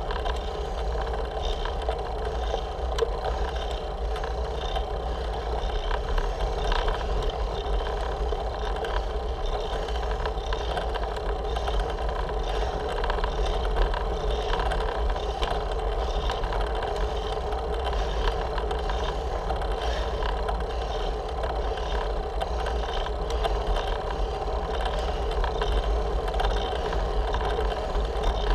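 Road bicycle climbing a steep hill, picked up by a handlebar-mounted camera: a steady low rumble of wind and road vibration, with faint ticking running through it.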